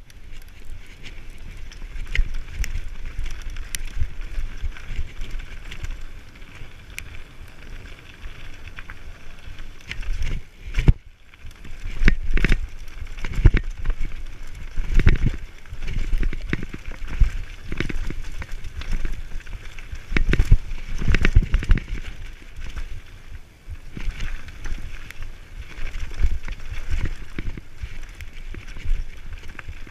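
Mountain bike riding fast down a rough dirt trail: a steady low rumble of wind and tyres on the ground, with frequent sharp knocks and rattles as the bike hits bumps and roots, busiest in the middle stretch.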